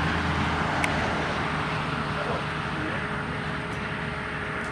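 A steady engine drone that slowly fades, with a faint click about a second in.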